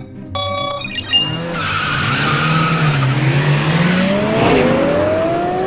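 A last start-signal beep, then race cars launching with a long tyre screech and engines revving, their pitch climbing from about three seconds in.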